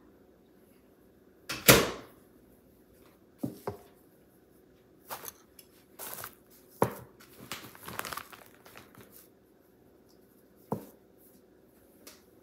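Kitchen handling sounds as a bowl of cinnamon-roll filling is taken from the microwave and set down. A loud clunk comes about two seconds in, then a scatter of lighter knocks and clatter, over a faint steady hum.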